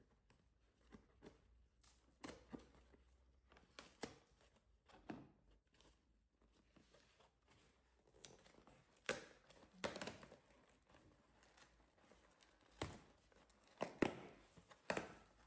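Cardboard parcel being opened by hand: a small cutter slitting the packing tape, then the flaps scraping and tearing open, heard as scattered soft scrapes and rustles. The loudest tears come in the second half.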